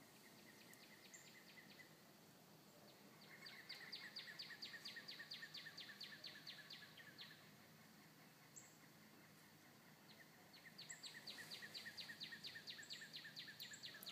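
Bird calling in runs of evenly repeated sharp notes, about five a second. A short run comes first, then two runs of about four seconds each. A few brief high chirps sound in between, over faint outdoor background.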